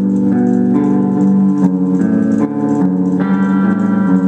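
Aria Pro II PE Elite electric guitar on its neck pickup, played clean through a small tube amp with no effects: a run of held notes and chords that change every half second or so.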